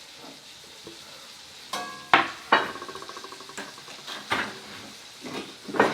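Metal kitchenware and utensils clinking and clattering: a few sharp clinks that ring briefly about two seconds in, a short rattle, then a few more knocks near the end, over a faint hiss.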